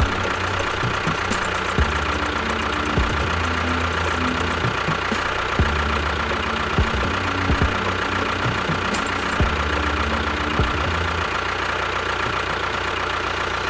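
Small motor running steadily with a high whine, a low rumble and scattered clicks and knocks.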